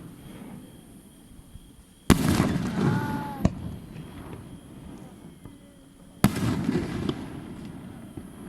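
Aerial firework shells bursting twice, about four seconds apart. Each is a sharp bang followed by a rumbling boom that fades over a second or so, with the fading tail of an earlier burst at the start.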